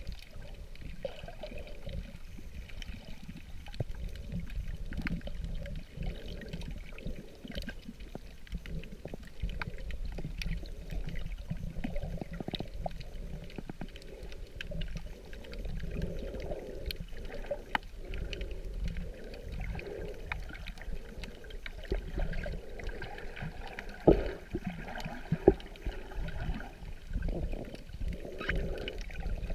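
Muffled underwater water noise from just below the surface: a low rumble with wavering sloshing, flecked with scattered faint clicks. Two sharper knocks come close together near the end.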